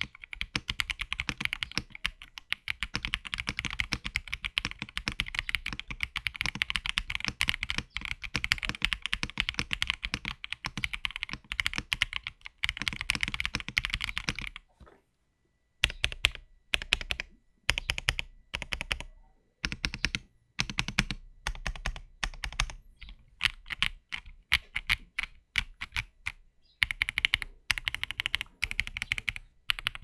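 Typing on a stock Akko ACR TOP 75 acrylic mechanical keyboard with Akko Crystal Wine Red switches and MDA-profile keycaps. Fast, continuous keystrokes break off about halfway for a second. They come back as short bursts of keys with pauses between, then turn fast and continuous again near the end.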